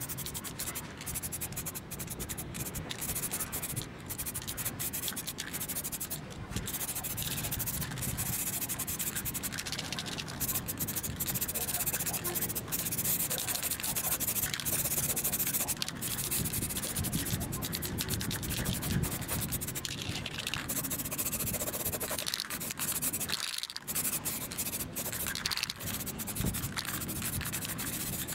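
Spray paint hissing in long passes broken by a few short pauses, coating the bench grinder's sheet-metal guards and covers.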